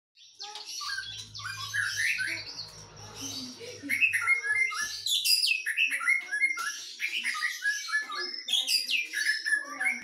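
White-rumped shama (Medan-type murai batu) singing: a rapid, varied run of chirps, whistles and downward-sweeping notes. Its song is not yet fully opened up ('belum pecah'), as the owner describes it.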